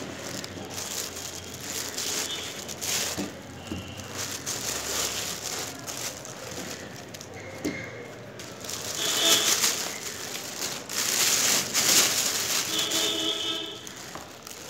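Thin plastic bag crinkling and rustling as a computer monitor is handled and slid out of it, with foam packing pieces pulled off, in irregular bursts that swell and fade.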